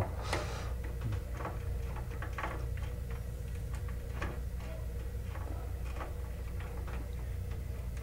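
Light, irregular ticks and clicks of wire being twisted and fastened at an alarm panel's screw terminal strip, over a steady low hum.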